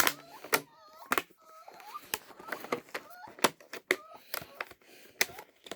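Puppies whining in short, wavering high cries over the sharp clicks and rustles of a headphone box and its packaging being handled.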